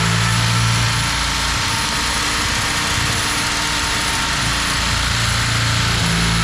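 Power tool motor running steadily with a high whine as it cuts out an old kitchen faucet that would not come off from underneath. The low hum turns rougher for a few seconds in the middle, then smooths out again.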